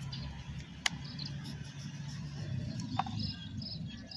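Kitchen knife shaving the thick skin off a chokanan mango, heard faintly over a steady low hum, with a sharp click about a second in and faint high bird-like chirps.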